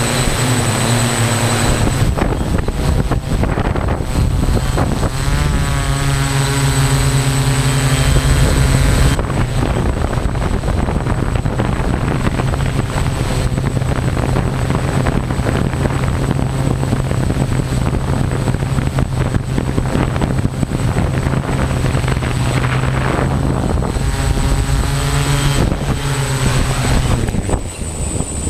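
A small camera drone's motors and propellers buzzing, heard close up from the onboard camera, with a steady high whine over the hum. The pitch shifts a few seconds in and again near the end as the drone manoeuvres, and it eases off as the drone sets down on asphalt.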